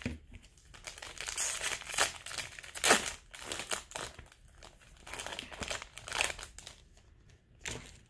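A baseball card pack's foil wrapper crinkling in the hands as it is torn open, in a string of irregular crackly rustles, loudest about two to three seconds in.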